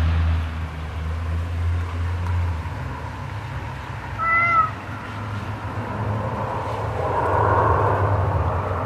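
A domestic cat gives one short meow about halfway through, rising and falling in pitch. Beneath it runs a steady low rumble.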